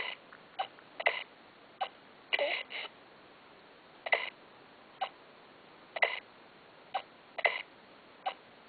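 A baby sucking and swallowing milk from a bottle: short gulping sounds about once a second, some coming in quick pairs.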